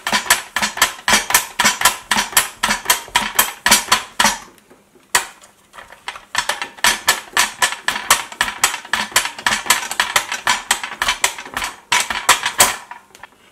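Peeled cassava root in a hand guard being pushed back and forth across the blade of a stainless-steel mandoline slicer, cutting chips. Quick, even strokes at about four a second, with a brief pause about five seconds in and stopping just before the end.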